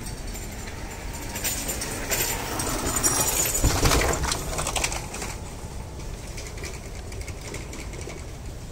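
Street noise with something rattling past: a rushing, clicking sound that swells and fades, loudest about four seconds in, over a low rumble.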